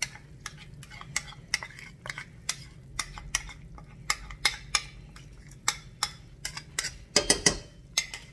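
A metal spoon clicking and scraping against a ceramic bowl as thick yogurt mixture is scraped out into a pan: a run of sharp, irregular clicks, with a few louder clatters near the end.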